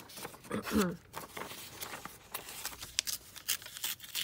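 Paper handling: a printed sheet and an envelope rustling and crinkling as they are laid together and pressed flat by hand, with a run of short crisp rubs and taps. A brief low vocal murmur under a second in.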